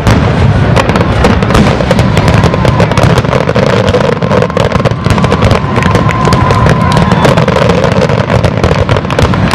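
Aerial fireworks shells bursting in rapid succession, loud overlapping booms and crackles with no gaps between them.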